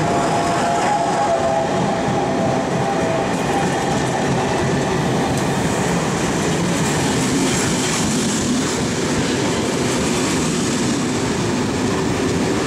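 Passenger coaches of a sleeper train passing close by at speed: a steady, loud noise of wheels running on the rails, with a thin high tone in the first few seconds.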